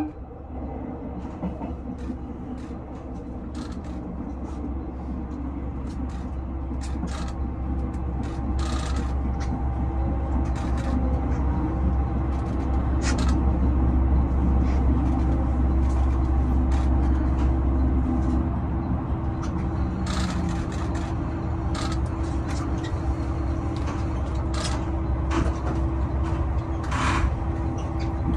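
JR Shikoku 2000-series diesel multiple unit heard from inside the driver's cab, rolling into a station with a low engine and running rumble and a steady drone. Irregular clicks and clunks come from the wheels passing over points and rail joints. The low rumble eases off about two-thirds of the way through.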